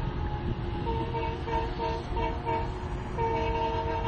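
Locomotive horn of an approaching train, sounded in warning at people on the track: a quick string of about six short toots, then a long held blast from about three seconds in, over a low rumble.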